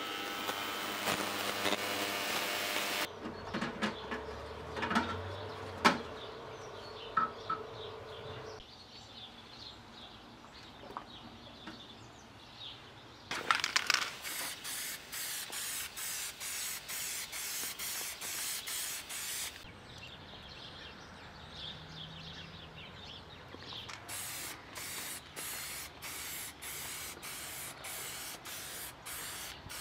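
Aerosol spray paint can hissing: one long steady spray, then a rapid string of short bursts near the end. Earlier, an ultrasonic parts-cleaner tank buzzes and cuts off about three seconds in, followed by a few clicks and knocks of parts being handled.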